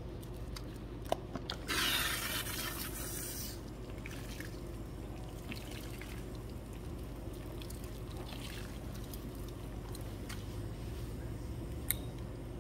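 Water from a salon shampoo-bowl sprayer running through lathered hair while hands squish and work the suds. There is a brief louder hiss about two seconds in and a sharp click near the end: the rinse stage after a relaxer.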